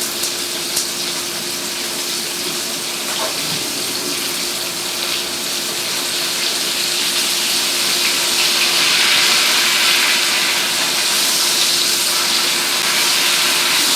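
Flour-dredged chicken breast slices frying in a shallow sauté pan of olive oil, butter and bacon fat: a steady sizzle that grows a little louder after the middle, with a faint steady hum underneath.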